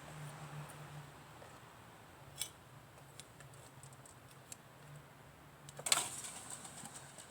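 Light clicks and taps of small hot cast-metal pieces being handled. About six seconds in comes a sharper clatter with a short hiss that dies away within a second: the still-hot casting sizzling. A low steady hum runs underneath.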